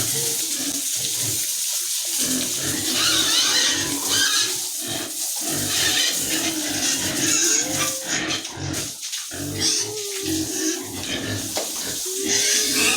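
Pigs grunting continuously, with a few short squeals mixed in.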